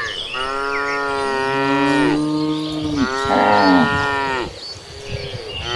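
Several cattle mooing in a herd: long, drawn-out moos at different pitches that overlap and follow one another, each sagging in pitch as it ends, with a short lull before another moo starts near the end.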